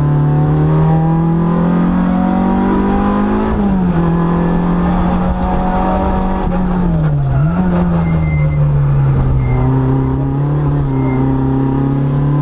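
Citroën AX GTI's four-cylinder engine under hard acceleration, heard from inside the cabin. The revs climb over the first three seconds or so, then drop sharply at a gear change, with another brief dip a little after seven seconds.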